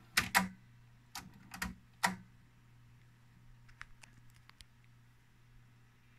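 Transport buttons of a TEAC V-47 cassette deck being pressed, its soft-touch mechanism clicking: a close pair of sharp clicks, then three more over the next two seconds, followed by a few faint ticks, over a steady low hum.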